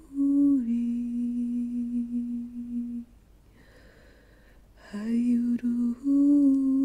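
A woman humming long, steady held notes. The first slides down a step and holds for a few seconds; after a pause of about two seconds she takes up the tone again, breaking briefly and settling on a slightly higher note near the end.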